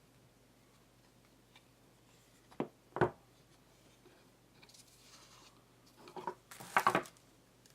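Packaging handled during an unboxing: two sharp knocks close together, a soft rubbing slide, then a quick cluster of clicks and knocks near the end.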